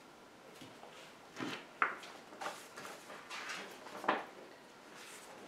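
Game cards and paper being handled on a cloth playmat: a series of short, soft rustles with a sharper tap a little under two seconds in.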